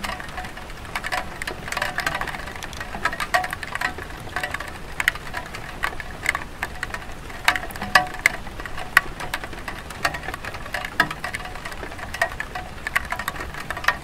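Light rain falling on a terracotta tile roof: a steady patter with many sharp, irregular taps of individual drops and drips.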